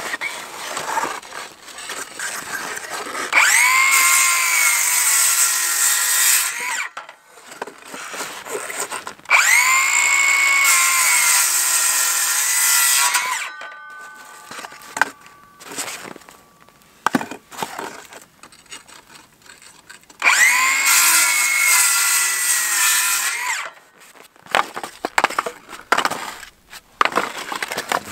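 Circular saw cutting through wooden boards three times: each cut opens with the motor spinning up to a steady whine that lasts three to four seconds. Between cuts there are quieter knocks of wood being handled.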